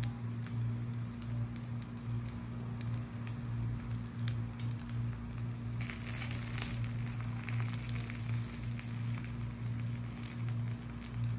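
Rava dosa batter sizzling and crackling on a hot dosa griddle, with butter melting into it. The sizzle grows briefly louder about six seconds in as butter is spread along the edges with a spoon. A low steady hum runs underneath.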